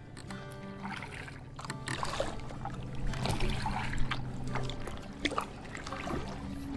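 Kayak paddling on calm creek water: a double-bladed paddle dipping and pulling, with water splashing and dripping off the blades about once a second.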